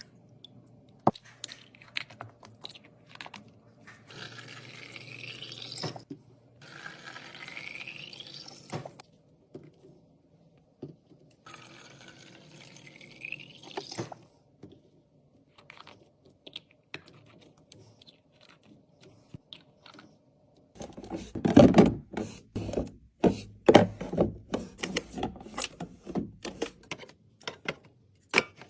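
Liquid poured into a container three times, each pour rising in pitch as the container fills, with light clicks of handling between. Later comes a louder run of knocks and clatters as items are set down and moved around.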